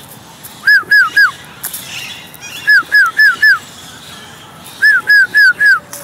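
Alexandrine parakeet calling loudly and close by: three bouts of three or four quick notes, each note falling in pitch.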